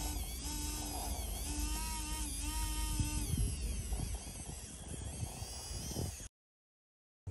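Small electric motor of a radio-controlled scale crawler whining in several short bursts with slight pitch changes, then faint clicking and rustle, cutting off suddenly about six seconds in.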